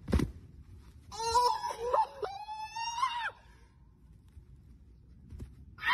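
A thud as a person lands hard on the ground, then a long, high-pitched wailing scream of about two seconds that breaks once and lifts at the end.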